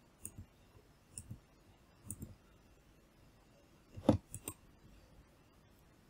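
Computer mouse clicking in short pairs of clicks, a few times, the loudest about four seconds in.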